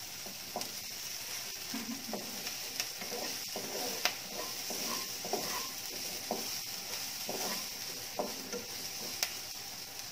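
Chopped onion and garlic sizzling in a nonstick frying pan, stirred and scraped with a nylon spatula, with a couple of sharp ticks of the spatula on the pan.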